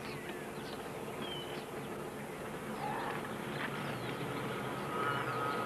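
A steady buzzing drone with short, high chirping glides scattered over it.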